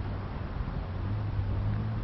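A steady low engine hum over a constant outdoor noise.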